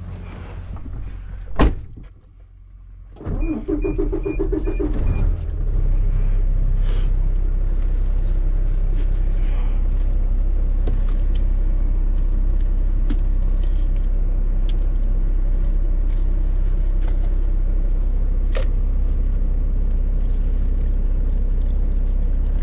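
Semi truck's diesel engine cranking over with a few short dashboard warning beeps, then catching and settling into a steady low idle; a sharp click comes just before.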